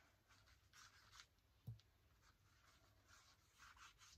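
Faint, soft scratchy strokes of a small paintbrush across paper, with one soft knock about halfway through.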